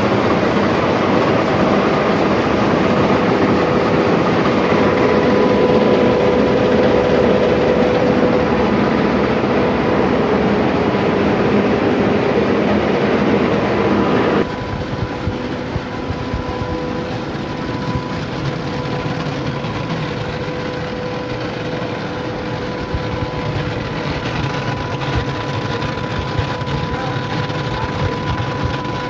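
Old rice mill machinery running: a dense, steady mechanical noise with a constant hum underneath. It drops suddenly to a quieter level about halfway through.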